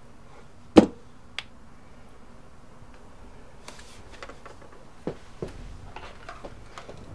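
Knocks and thumps of someone moving at a desk: one sharp thump about a second in, a small click just after, then two softer thuds and a few light knocks toward the end.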